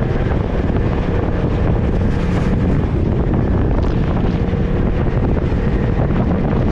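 Off-road vehicle driving, with a steady low running noise and wind buffeting the microphone.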